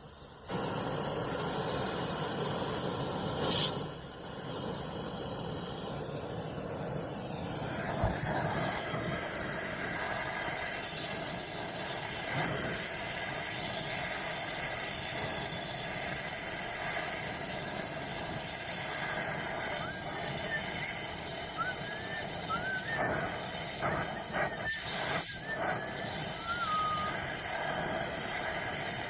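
Brazing torch flame hissing steadily while the copper refrigerant lines are brazed, with a sharp click about three and a half seconds in.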